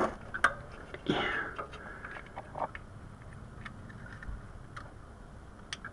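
Scattered light clicks and rustles of hands working an oxygen sensor's wiring and plastic connector clip, with a slightly longer rustle about a second in.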